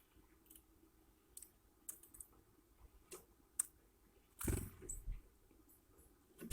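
A bird pecking and tapping at food: scattered light, irregular clicks, with a louder, longer scuffle about four and a half seconds in.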